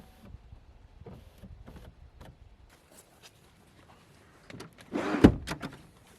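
Car door creaking and shutting with a loud thud about five seconds in, after a few seconds of low rumbling and light clicks.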